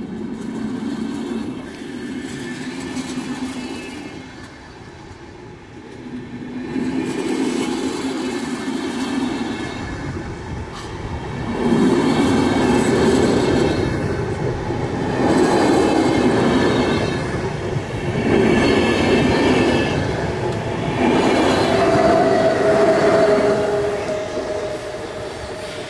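A train passing on the track, its wheel-on-rail noise swelling and fading several times as the cars go by. A steady whine joins in near the end.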